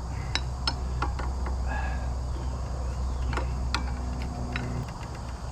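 Scattered light metallic clicks and taps of tools being handled against metal parts, about ten in all, over a steady low hum that stops near the end.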